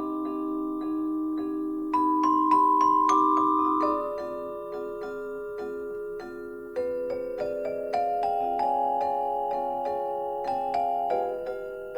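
Background music of gently struck mallet-percussion notes over sustained chords, with a new phrase entering about two seconds in.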